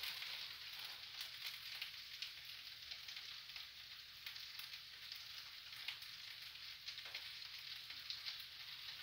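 Faint, steady sizzling with light crackles from frying pans of potato hash and sausages. The burners are shut off, but the pans are still hot.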